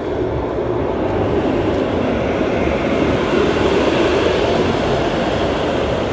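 Steel roller coaster train running along its track during a test run, a steady rolling rumble of wheels on steel rails that swells slightly toward the middle.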